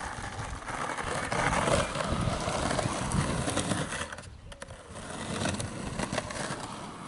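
Skateboard wheels rolling over hard-packed dirt and grit, a continuous gritty noise with small clicks, which drops away briefly about four seconds in.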